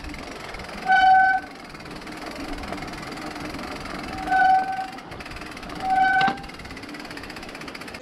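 Riding noise from a mountain bike on a wet dirt trail, with wind on the microphone. Three short, steady hoots of one pitch break through it: one about a second in, then two more close together around four and six seconds.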